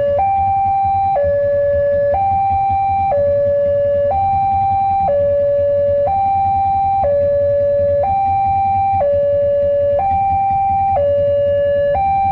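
Railway level-crossing warning alarm sounding its electronic two-tone hi-lo signal, each tone held about a second, the warning that a train is approaching. A low rumble runs underneath.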